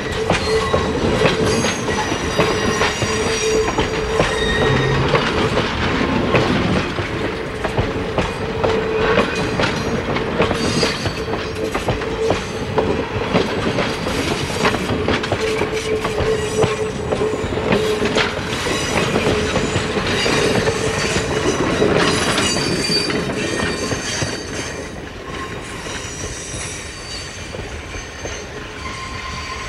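Steel wheels of passenger cars rolling past on a curve: clattering over the rails with a steady flange squeal. The sound drops off about 23 seconds in as the last car pulls away.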